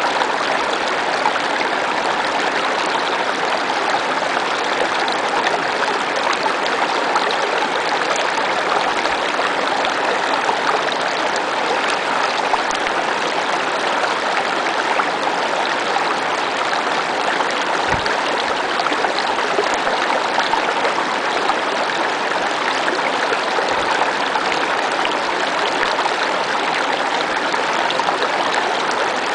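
Small snowmelt mountain stream running over rocks, heard close up: a steady, even rush of water.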